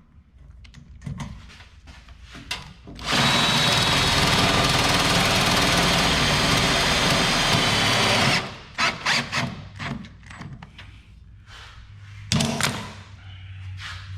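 A power drill runs steadily for about five seconds, then a quick series of knocks and clatters follows as parts are handled, with one more knock near the end.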